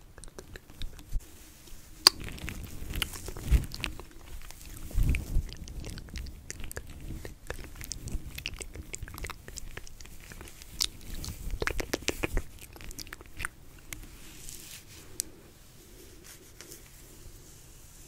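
Close-miked ASMR mouth sounds and finger movements: irregular small wet clicks and crackles, with a few louder thumps in the first half. The sounds thin out over the last few seconds.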